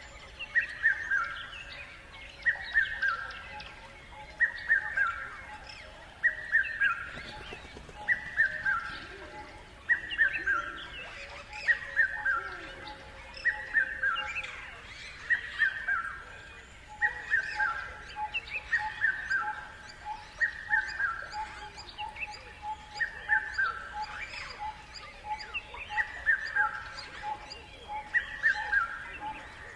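Wild birds calling: one bird repeats a short phrase of a few falling notes about every two seconds, with other birds chirping around it and a faint steady pulsing note underneath.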